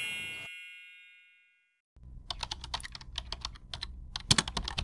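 A bright chime fades out over the first second or two. After a short silence comes a run of quick, crisp clicks like typing on a computer keyboard, with a louder pair of clicks near the end, cutting off abruptly.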